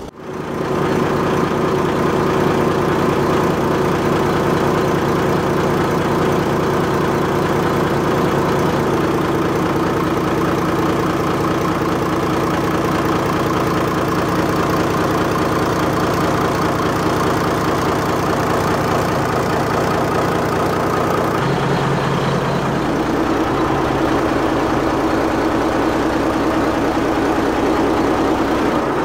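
Inboard multi-cylinder marine diesel engine with an in-line injection pump running steadily at idle, heard close up in the engine room; its tone shifts slightly a little past two-thirds of the way through.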